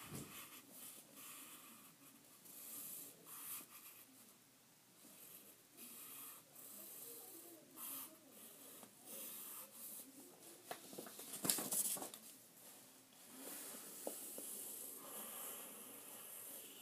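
Pencil scratching on paper in short strokes as letters are written, faint throughout, with one sharper knock about two-thirds of the way through.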